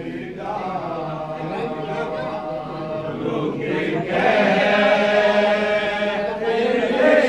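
A group of men chanting a Shia farewell lament (latmiyah/noha) together in long, held melodic lines, growing louder about four seconds in.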